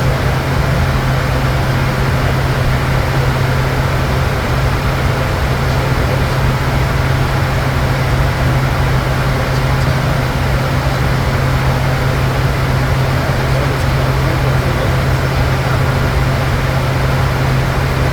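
Steady in-flight noise inside a Bombardier Challenger 350 business jet as it climbs out: an even rush of air and engine noise over a constant low hum, unchanging throughout.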